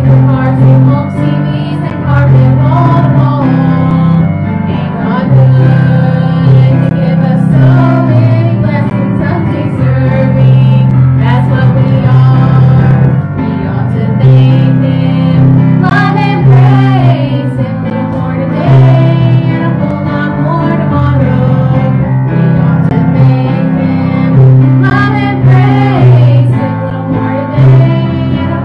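A woman singing an old church song over instrumental accompaniment with sustained low notes.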